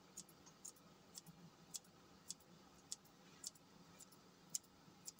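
Kitchen scissors snipping fresh basil leaves over a saucepan: faint, sharp clicks about twice a second.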